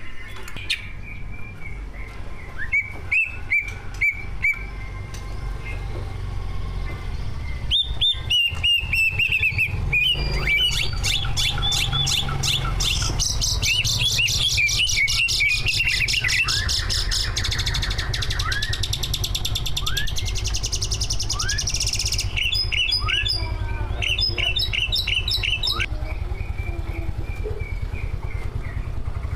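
Cucak ijo (green leafbird) singing a varied song full of imitated phrases: sparse sharp chirps at first, then from about eight seconds in a dense run of fast trills, rattles and rising whistled notes. A steady low hum runs underneath.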